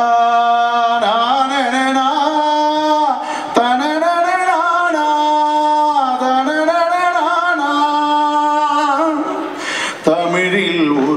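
Singing of a Tamil folk song: long drawn-out, wavering vocal notes held for a few seconds each, with short breaks about three and a half seconds in and near the end.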